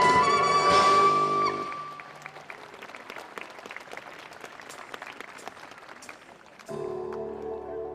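A song ends on a held note about a second and a half in, followed by audience applause. Near the end, soft music with held chords begins.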